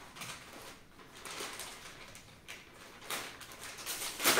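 A knife slitting open a plastic courier mailer, the thin plastic crinkling and rustling in short scratchy bursts, with a louder sharp crackle just before the end.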